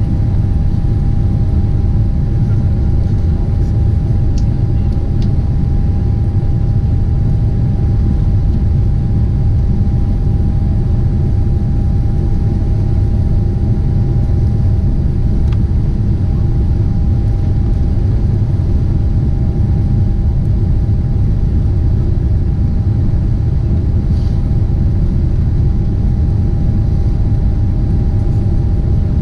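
Steady in-flight noise of a Boeing 747-8: an even, unbroken low rumble of engines and airflow with a constant thin hum above it.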